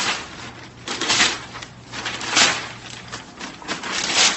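Newspaper pages rustling and crinkling as a golden retriever grabs them in its mouth and tugs at them, in four loud rustles roughly a second apart.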